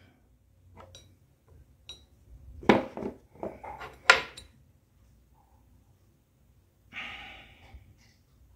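A disassembled tweeter's plastic housing and aluminium body handled on a tabletop: a series of knocks and clicks, the loudest about three and four seconds in, then a short scrape about seven seconds in.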